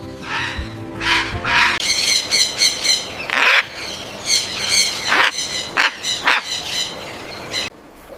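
Blue-and-gold macaws squawking, a run of harsh, loud screeches and raspy calls one after another that stops shortly before the end.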